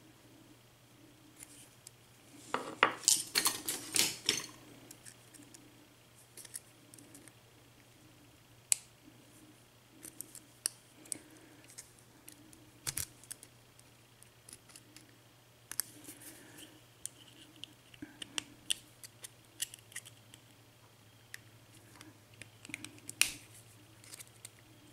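Small metal tools clicking and scraping against a padlock while its retaining clip is worked off, with a quick flurry of sharp metallic clicks about three seconds in, then scattered single clicks and short scrapes.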